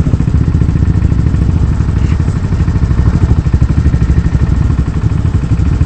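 Quad bike (ATV) engine idling close by, a steady rapid throb with no revving.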